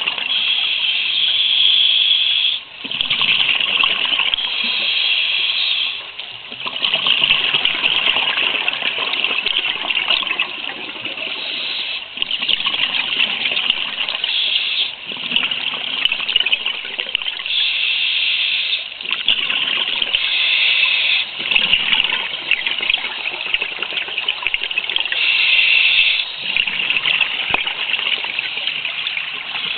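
Scuba diver's breathing recorded underwater: surges of bubbling exhalation and regulator hiss, each lasting a second or two and coming one after another every few seconds.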